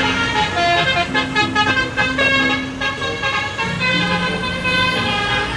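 Multi-tone 'telolet' bus horn playing a tune: several held horn notes sound together and change pitch about every half second.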